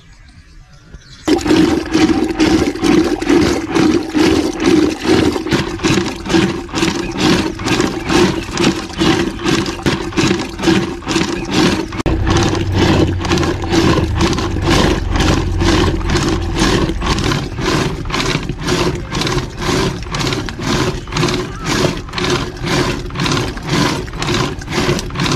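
Milk being churned for butter with a rope-pulled wooden churn stick turning in a clay pot: rhythmic sloshing at about two strokes a second over a steady drone. It starts suddenly about a second in.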